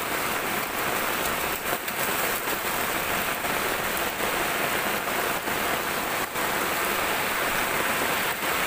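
Heavy rain falling steadily, mixed with muddy floodwater rushing across a dirt road: an even, unbroken hiss.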